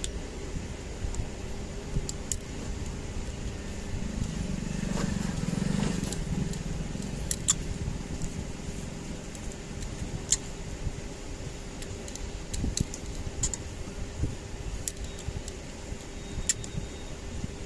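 Scattered small clicks and taps of hand tools and plastic phone parts being worked on a bench during a smartphone teardown, over a steady background hum, with a low rumble from about four to six seconds in.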